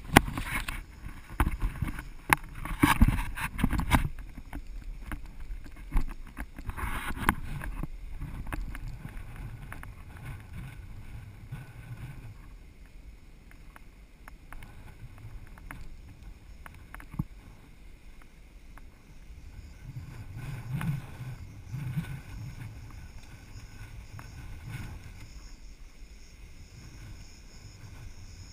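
Strong gusting wind rumbling on the microphone, with loud gusts in the first few seconds and again around seven seconds, then steadier and quieter.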